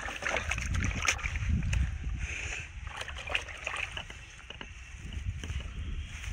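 A fish thrashing and splashing in a plastic tub of water, in quick bursts over the first couple of seconds, then calmer. A low wind rumble on the microphone runs underneath.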